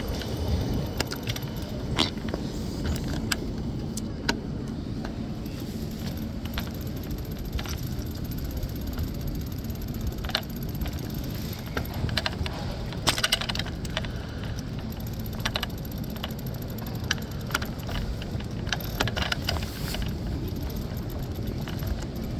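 Bike-share bicycle rolling along a city street: a steady low rumble with frequent light rattles and clicks.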